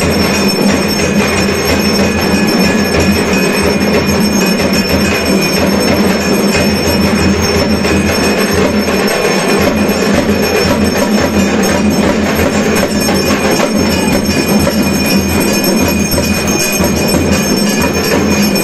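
Temple bells clanging loudly and without a break as the aarti lamp is waved, with a steady metallic ringing over a dense din and an uneven low beat.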